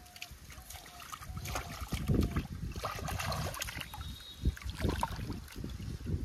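Shallow pond water splashing and sloshing in irregular bursts, heavier from about a second and a half in.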